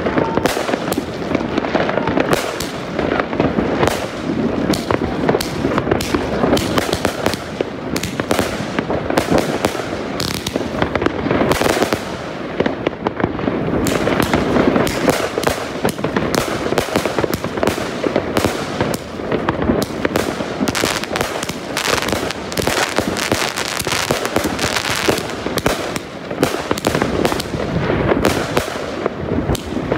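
Göteborgs Fyrverkerifabrik Supreme 82-shot firework cake (20 and 30 mm tubes) firing: a dense, unbroken run of launch thumps and aerial bangs, several a second, with crackle between them.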